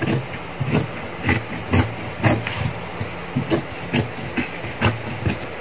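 Tailor's shears cutting through two layers of leather, a crisp snip about twice a second, over a steady low hum.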